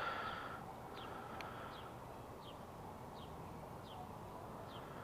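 A small bird chirping: short, high, falling chirps repeated every half second to a second, faint over steady outdoor background noise.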